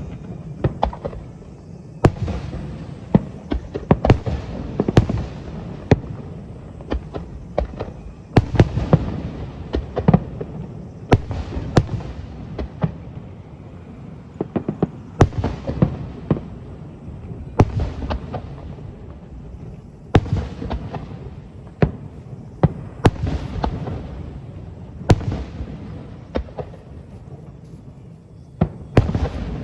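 Fireworks display: aerial shells bursting in quick, irregular volleys of sharp bangs, each followed by a low rumble and crackle.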